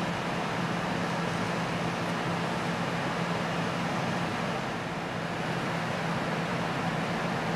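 iPhone speaker playing a steady low tone of about 165 Hz from a tone-generator app at full volume, with a rough, noisy haze over it, vibrating water out of the wet speaker.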